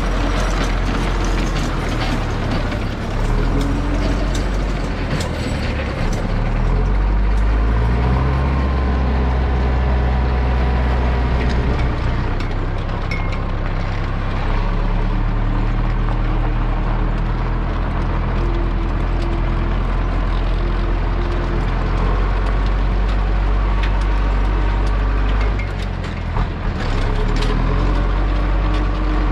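Zetor 6245 tractor's four-cylinder diesel engine running under way, its engine note shifting up and down a few times and dipping briefly near the end, with scattered mechanical clicks and rattles.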